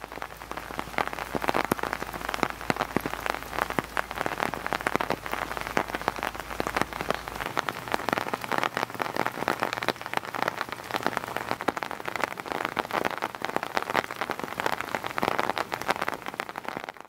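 Steady rain, dense close drops striking a surface in a continuous fast patter of small ticks.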